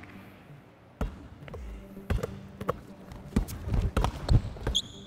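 A basketball being dribbled hard on a hardwood court during one-on-one play, thumping at an irregular pace from about a second in. Near the end come brief high sneaker squeaks on the floor.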